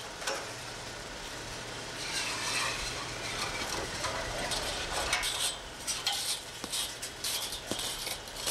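Scraping and rustling as lifting cables and boots shift across asphalt roof shingles, with a few sharp clicks and a faint low hum in the first half.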